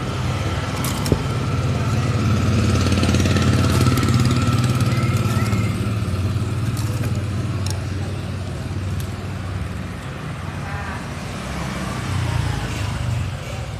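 Steady low rumble of road traffic or a running engine, with a few short, faint chirps from a starling now and then.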